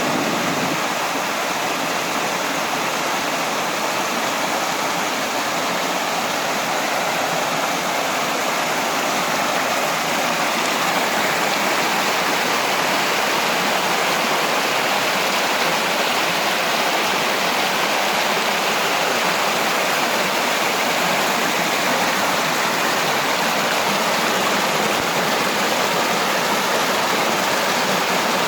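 Small waterfall on a creek, water pouring and splashing steadily.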